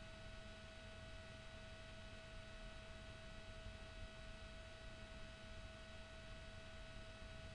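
Near silence: a faint, steady electronic whine, one constant mid-pitched tone with fainter higher tones, over low hiss.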